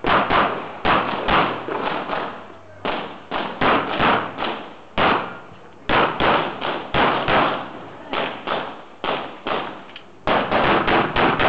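Semi-automatic pistol fired in a practical shooting stage: a long series of loud gunshots, mostly in quick pairs, with a rapid run of shots near the end.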